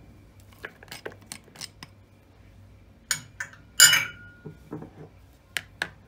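A plastic salad fork tapping and scraping against a glass bowl as sliced onion is pushed out into a salad. First a run of light taps, then two sharper clinks about three and four seconds in. The second clink is the loudest and has a short glassy ring. Two more taps come near the end.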